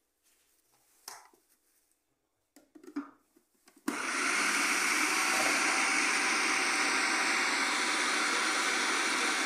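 A few light knocks and clicks, then about four seconds in an electric food processor switches on and runs steadily, grinding a kibe mixture of ground beef and bulgur wheat.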